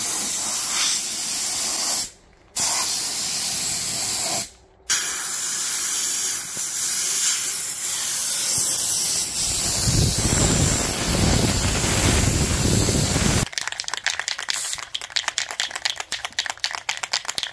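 Compressed air hissing hard from an air compressor's blow gun drying a plastic part, the trigger released twice briefly in the first few seconds, with a low rumble of air buffeting the microphone in the last few seconds of blowing. Then the hiss stops abruptly and a spray-paint can is shaken, its mixing ball rattling fast.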